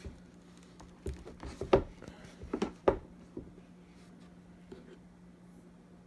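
A handful of sharp knocks and taps, clustered in the first half, from a rugged-cased diagnostic tablet being handled and its touchscreen tapped, over a faint steady low hum.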